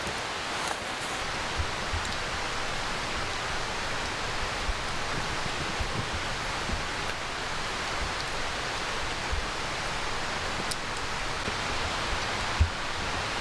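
Steady rushing water noise, with a few soft low thumps, one louder near the end.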